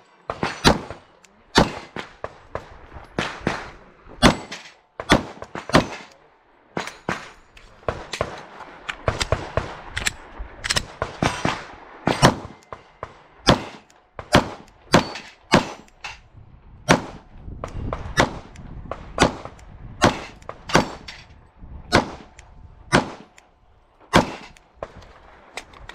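Glock 22 .40-calibre pistol firing dozens of shots, in quick pairs and short strings with brief pauses between, as a competition course of fire is shot.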